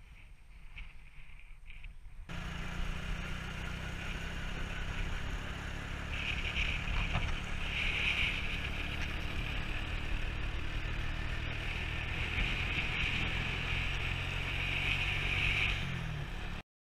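Engine of a Suzuki KingQuad 300 quad bike, a single-cylinder four-stroke, running steadily while the bike is ridden along a gravel road, with a steady hiss over it. It starts abruptly a couple of seconds in after near quiet and cuts off suddenly near the end.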